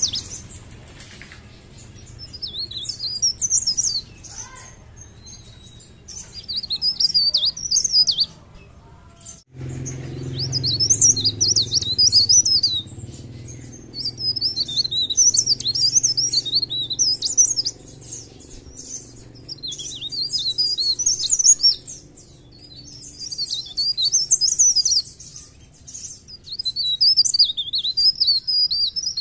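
Mountain leaf warbler (cikrak daun) singing vigorously: rapid, high, jittery warbling phrases of two to four seconds each, repeated again and again with short pauses between them.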